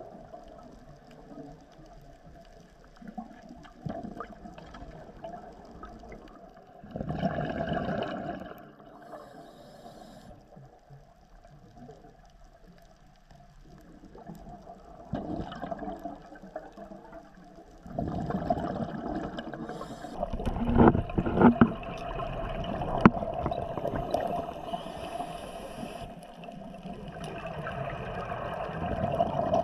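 Underwater sound of a scuba diver's exhaled bubbles: gurgling surges of bubbles come every several seconds over a low hiss. The longest and loudest surge, about two-thirds of the way through, carries a few sharp clicks.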